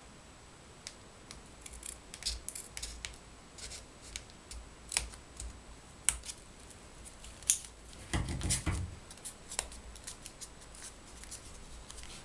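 Small scissors snipping through several layers of folded printed paper: sharp snips at irregular intervals, with one longer, louder rustle a little past the middle.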